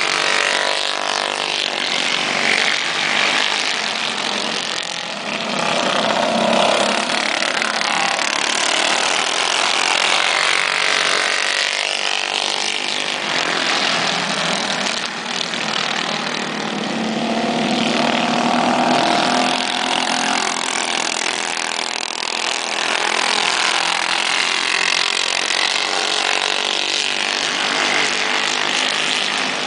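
Several racing go-kart engines running hard as the karts lap the track, a buzzing engine note whose pitch repeatedly rises and falls as they accelerate and back off through the corners.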